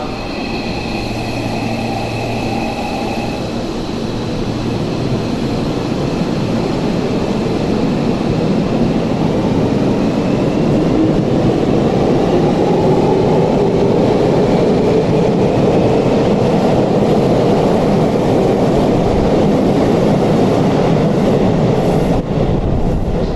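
Electric commuter train pulling out of an underground station. Its inverter and traction-motor whine rises in pitch as it gathers speed, and the rumble of wheels on rail builds as the cars pass, then holds steady near the end.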